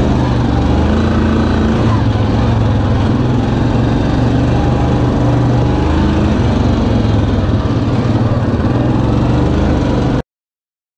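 2019 Yamaha Kodiak 700 ATV's single-cylinder engine running steadily while the machine rides a dirt trail, with wind and tyre noise over it. The sound cuts off suddenly about ten seconds in.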